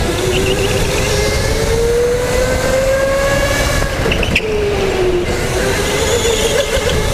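Electric go-kart's motor whining as it drives a lap. The pitch climbs steadily, drops about four seconds in as the kart slows for a corner, then climbs again. Wind rush and tyre noise on the concrete track run underneath.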